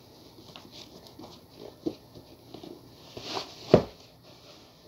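Faint scattered knocks and rustles of an Air Jordan 1 high-top sneaker being worked onto a foot, with one sharp, louder thump a little before the end.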